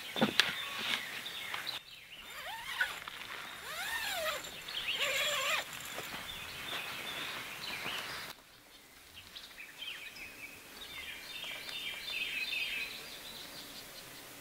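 Woodland birds singing: arching, gliding phrases and runs of quick repeated high notes over a quiet outdoor background, with a few short knocks in the first couple of seconds.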